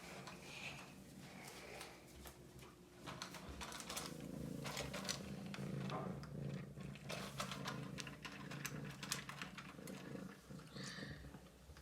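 A domestic cat purring, a steady low rumble building up about three seconds in, with many short sharp clicks over it.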